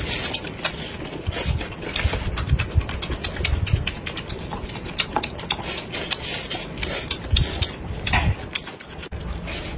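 Close-miked chewing and mouth sounds of people eating rolled thin pancakes with vegetable fillings: many small wet clicks and smacks over a steady low rumble.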